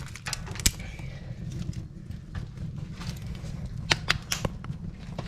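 Small kindling fire crackling, with irregular sharp pops and snaps, several close together about four seconds in.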